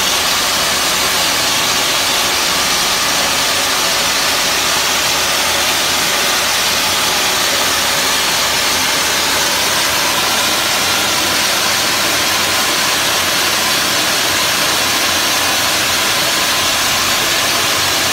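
Wet sandblaster nozzle spraying water and recycled fine glass abrasive at low pressure, about 20 psi, against painted brickwork to strip the paint: a steady, loud hiss that runs without a break.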